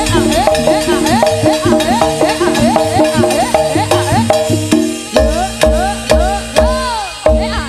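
Jaranan gamelan music, loud: kendang drums with strokes that bend up and down in pitch, over steadily repeating pitched percussion notes. A deep bass drops out just after the start and comes back about five seconds in.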